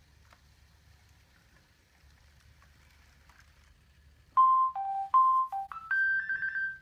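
Sony AIBO robot dog playing a short electronic beep melody from its speaker. It starts after a few quiet seconds, steps back and forth between two pitches, then climbs to a higher pitch and ends in a quick warbling trill.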